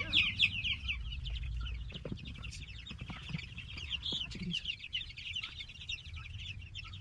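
A flock of young chicks peeping constantly in a dense, high-pitched chorus of short chirps, thinning a little in the second half. A few soft knocks sound in the middle.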